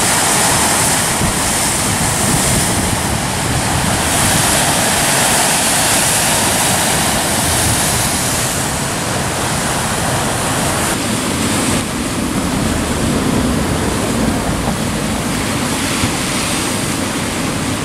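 Sea surf breaking and churning against a rocky shore, a steady rush of water, with wind on the microphone.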